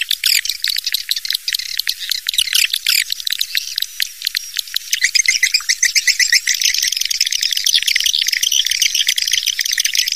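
Swiftlets twittering: a dense, unbroken stream of rapid high-pitched chirps and clicks, with no low sound at all. It is a swiftlet call recording of the kind played to draw swiftlets into a nesting house.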